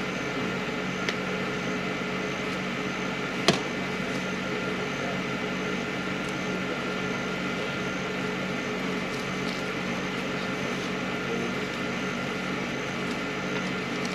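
A steady mechanical hum, such as an engine idling nearby, with a faint high chirp repeating about twice a second. A sharp click comes about three and a half seconds in, and a lighter one about a second in.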